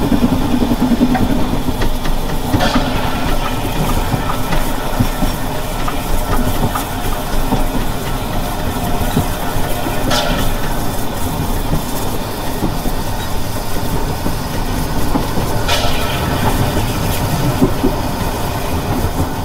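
Rasender Roland narrow-gauge train hauled by steam locomotive 99 4011-5, heard while riding along: the steady noise of the running train and its steam, broken three times by a short sharp clack.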